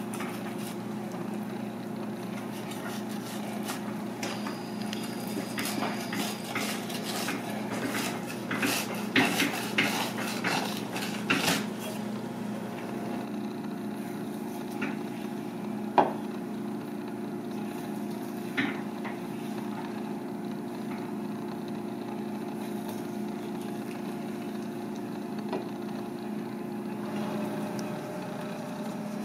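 Kitchen knife cutting a mahi mahi fillet on a plastic cutting board, with a run of quick clicks and knocks of the blade against the board a few seconds in, then a couple of single knocks later. Under it runs a steady machine hum.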